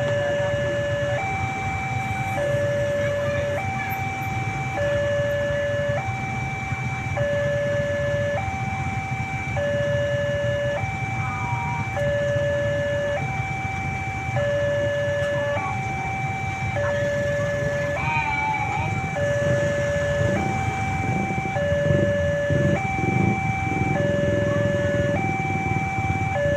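Electronic two-tone warning siren of a railway level crossing, the crossing's newly fitted siren. It alternates steadily between a lower and a higher pitch, each held about a second, over a low rumble.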